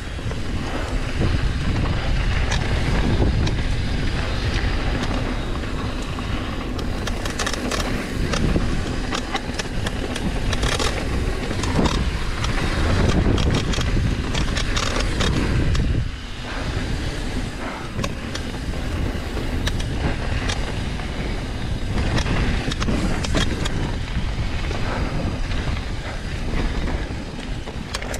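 Wind rushing over the camera and knobby tyres rolling on a dirt trail as a Trek Session downhill mountain bike descends, with clicks and clattering from the bike over rough ground, thickest in the middle stretch. The noise drops briefly about two-thirds of the way through.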